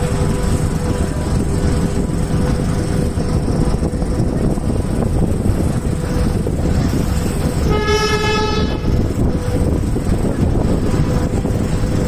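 Passenger train running, with steady wheel-on-rail rumble and wind rush coming in through the open window of a non-air-conditioned coach. About eight seconds in, a train horn sounds once, a steady blast of about a second.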